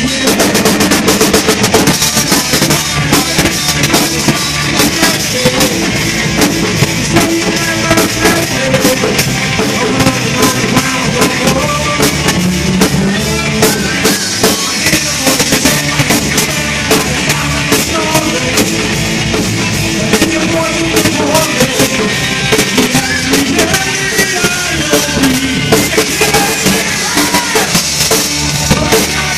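Live band playing amplified rock, led by a drum kit with a steady, driving beat under electric guitars.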